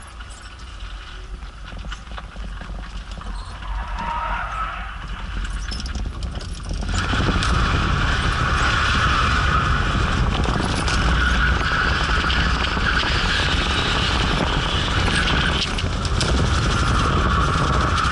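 BMW 325's engine running under load, heard from inside the cabin, and from about seven seconds in its tyres squealing steadily and loudly through a long drift, with a brief break near the end.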